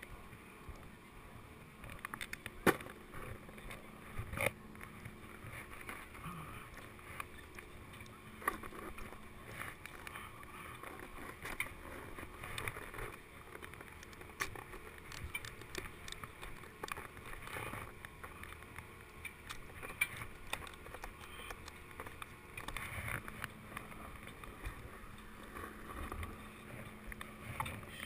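Snowboard scraping and shuffling on packed snow, with a run of quick clicks around the middle as the binding straps are ratcheted tight.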